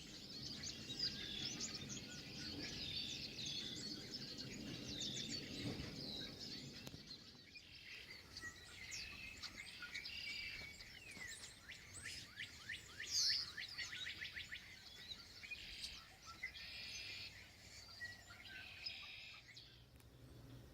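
Songbirds chirping and calling, faint, with many short high notes and a quick trill of repeated notes about halfway through.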